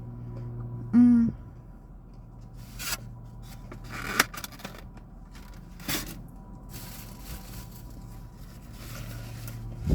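Chewing and mouth sounds of a person eating a chicken tender sandwich: scattered wet clicks and smacks. About a second in there is a brief, loud voiced hum.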